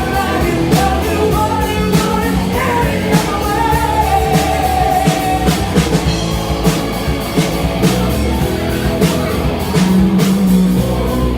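Live rock band playing, with steady drum hits under a sung melody.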